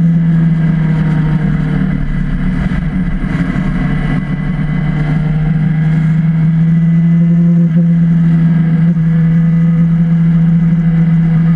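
Motorcycle engine droning at a steady freeway cruising speed, heard from on the bike, with wind rushing over the microphone that swells for a few seconds in the first half.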